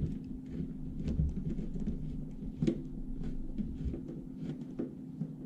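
Scattered light clicks and knocks of hands and a screwdriver working the oven's control-panel screws, over a steady low hum.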